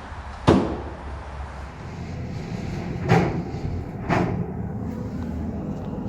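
Three sharp knocks, the first about half a second in and two more about a second apart near the middle, over a steady low rumble.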